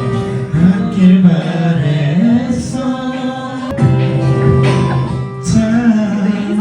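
Music with a low male voice singing long held notes that slide up and down between them.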